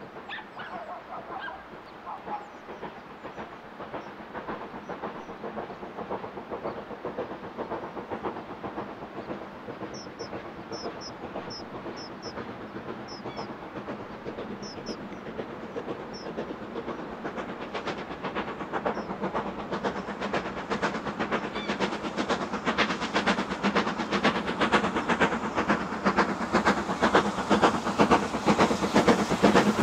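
Steam locomotive (LMS Black 5 4-6-0) working hard with rapid, regular exhaust beats, getting steadily louder as it approaches.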